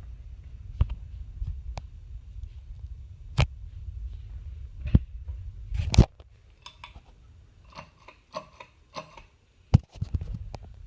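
Sharp single clicks over a low rumble. About six seconds in, the rumble drops away and a quick run of short, squeaky ticks follows, then one more click near the end.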